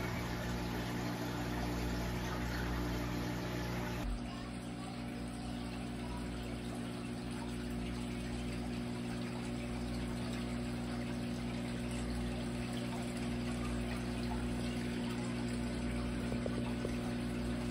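Saltwater aquarium equipment running: a steady pump hum with several low tones under the rush and trickle of circulating water.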